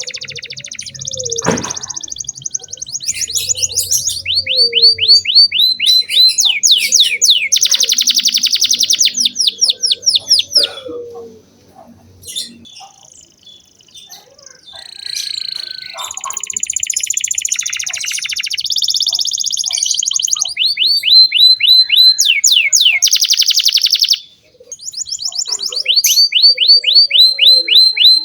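Domestic canary singing vigorously in long, loud trills of rapidly repeated falling notes, several a second, with a pause of a few seconds about halfway through and a short break near the end.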